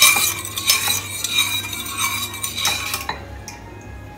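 Metal spoon stirring thin liquid in a stainless steel saucepan, scraping and clinking against the sides and bottom of the pan. The stirring stops about three seconds in.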